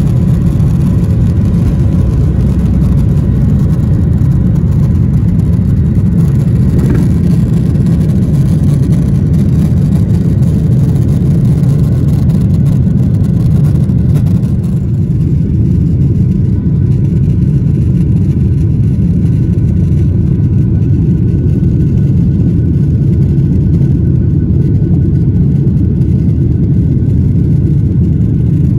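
Steady low rumble of a Boeing 737-800's CFM56 jet engines and airflow heard inside the cabin, with faint steady whining tones above it. The higher hiss eases slightly about halfway through.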